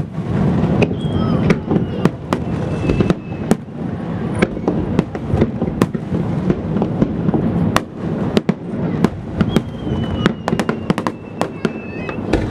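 Aerial fireworks shells bursting: many sharp bangs and crackles over a continuous low rumble, coming thick and fast in the last few seconds. Two thin whistles glide slowly down in pitch, one about a second in and one near the end.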